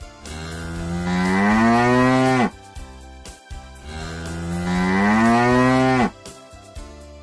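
A cow mooing twice, two long moos of about two seconds each, each rising slowly in pitch and dropping off at the end.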